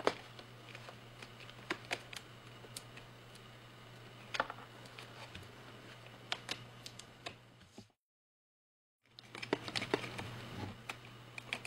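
Scattered small clicks and ticks of a Phillips #0 precision screwdriver turning out the tiny screws of a metal side bracket on a laptop LCD panel, over a low steady hum. The sound drops out completely for about a second near the end.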